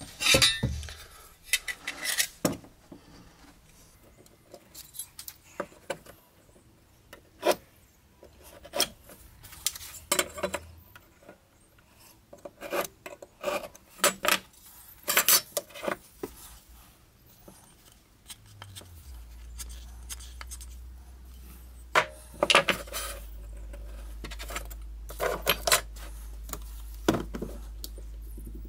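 Marking out lines on wooden pieces at a workbench: short scratching strokes of the marking tool, with scattered clicks, knocks and small metallic clatter as tools and pieces are handled. A steady low hum sets in about two-thirds of the way through.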